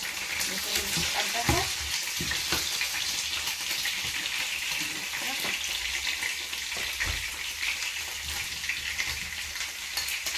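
Lamb ribs sizzling steadily in hot oil in a nonstick frying pan, with a few clacks of metal tongs against the pan as the pieces are turned.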